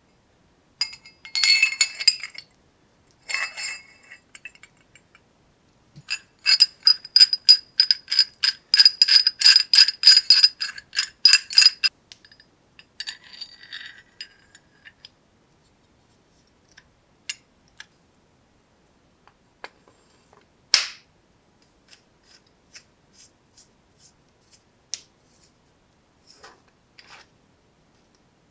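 Steel parts of an antique Whitman & Barnes monkey wrench clinking and ringing as it is handled and assembled. A few clinks, then a quick run of ringing metal clicks lasting about six seconds, then scattered light clicks with one sharper click past the middle.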